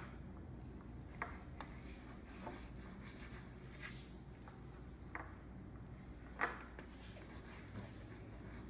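Paintbrush faintly scratching and dabbing acrylic paint, with a few light clicks and taps, the loudest about six and a half seconds in.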